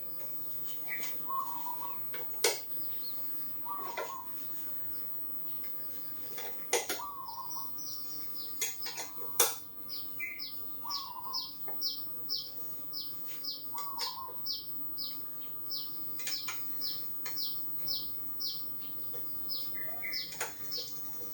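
Birds calling: a short dipping call repeats every couple of seconds, and from about seven seconds in a fast run of high, falling chirps comes about two a second. A few sharp metallic clicks from the Allen key on the exhaust bolts sound between the calls.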